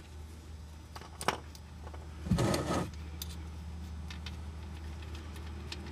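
Hand tools and a drain pan being handled under the rear differential: a few light clicks about a second in and a short scrape about two and a half seconds in, over a steady low hum.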